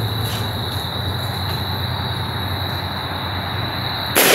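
A single 12-gauge shotgun blast from a Benelli Nova pump-action, sudden and loud near the end, fired up into tree limbs, with its report dying away over about a second. Before it, a steady high-pitched hum and a low background rumble.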